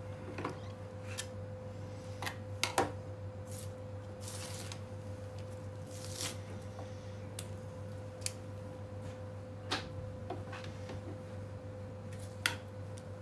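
Scattered light clicks and knocks of a boning knife and hands on a plastic cutting board, with a few short rasping, tearing sounds as the inside skin and gristle are worked off a lamb flank. A steady low hum runs underneath.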